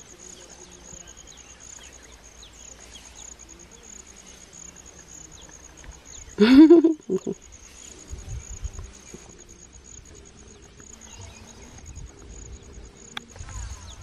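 A steady, high-pitched insect trill pulsing evenly throughout. About six and a half seconds in, a short loud voice-like call rising in pitch cuts across it, followed at once by a brief second one.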